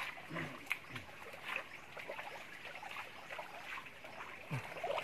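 Water trickling and running over rocks as a steady hiss, with a few faint clicks of chiton shell plates being handled.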